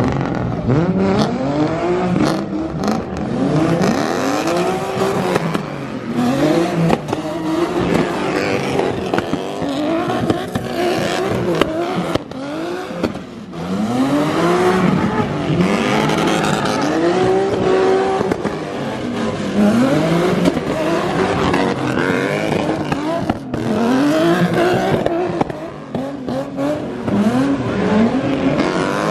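Drift car engines revving up and down again and again, the pitch climbing and dropping every second or two, with tyre noise from sliding on wet pavement.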